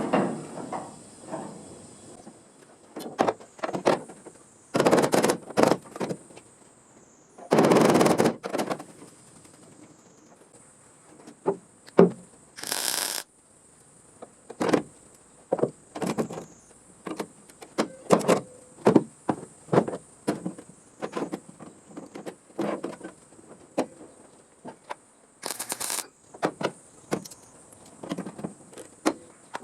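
Sheet-metal bodywork on a car's steel floor panel: scattered knocks and clicks, broken by a few short bursts of harsher noise, the longest lasting about a second.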